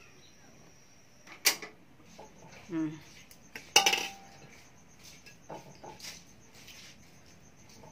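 Clanks and clinks of a stainless steel bowl, a metal mesh strainer and ceramic plates being handled, with two sharp knocks about a second and a half in and near four seconds in, the second ringing briefly, then lighter taps.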